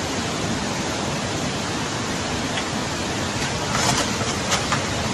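Fast floodwater rushing down a street in a steady, dense rush. A few short knocks sound in the second half.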